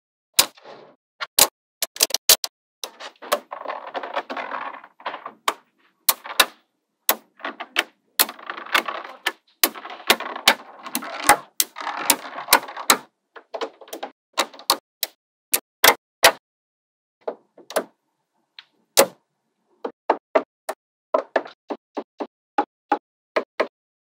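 Small magnetic balls snapping onto a magnetic-ball wall with sharp clicks, as strips and stacks of balls are pressed into place, with stretches of grainy rattling from the loose balls in between. Near the end a quick run of clicks follows as small stacks are set on one after another.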